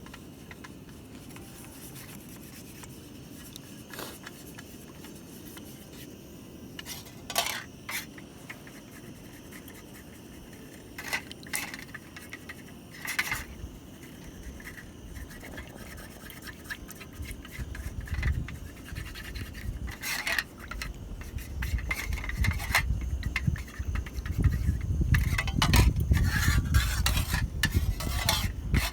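Utensils scraping and clinking against camp cookware, a few separate knocks and scrapes at first, then more often, under a low rumble that grows louder through the second half.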